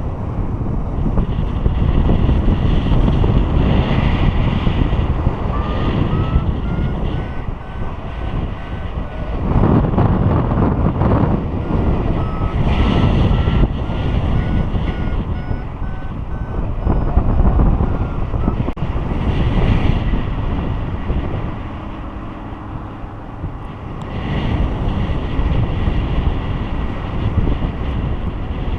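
Wind rushing over the microphone of a paraglider in flight. Faintly behind it, a variometer beeps in two spells, its pitch rising and then easing off, the sign of the glider climbing in lift.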